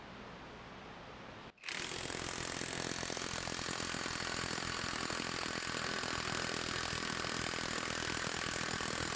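Room tone, then about a second and a half in a Harbor Freight Hercules High Torque cordless half-inch impact wrench starts hammering in reverse on a torque tester. Its rapid impact blows run steadily without a break.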